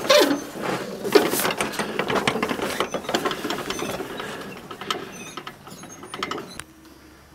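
Gilded metal prayer wheels spun by hand, a run of clicks and rattles as they turn on their spindles. The rattle slowly fades and then cuts off near the end.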